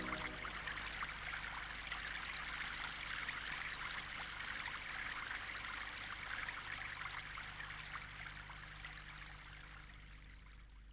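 Water running and trickling like a small stream, fading out steadily and stopping near the end.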